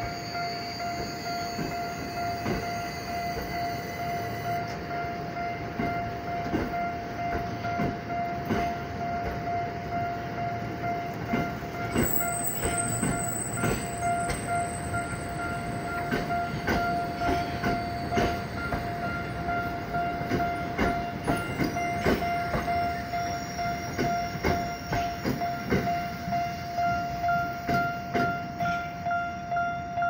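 Tokyo Metro Ginza Line 1000-series train rolling slowly over a level crossing, its wheels clacking over the rail joints, the clacks falling into a regular rhythm in the second half. A steady ringing tone from the level crossing's warning alarm carries on throughout, while the gates are down.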